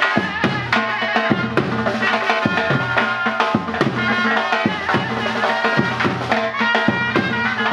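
Surnay, the Uzbek double-reed shawm, playing a sustained, piercing melody over a steady drum beat in traditional folk music.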